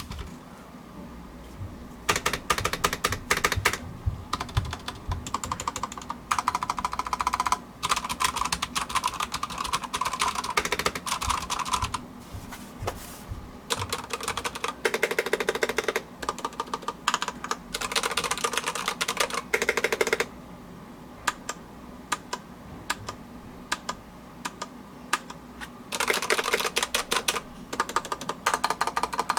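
Typing on a Durgod Taurus K320 mechanical keyboard with Cherry MX switches and PBT double-shot keycaps. The keystrokes come in fast runs with short breaks, and a longer, quieter pause follows about two-thirds of the way through.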